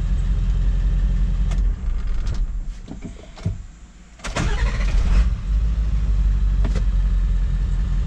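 Ford 7.3 Powerstroke turbo-diesel V8 idling hot, then fading out about two seconds in as it is shut off, and restarting with a burst about four seconds in before settling back to a steady idle. This is a successful hot restart, the fault it was being tested for being a no-start when hot.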